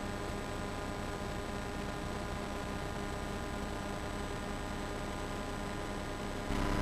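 Steady electrical hum and hiss with no game sound under it. Near the end the noise jumps louder, with a brief steady tone, at an edit.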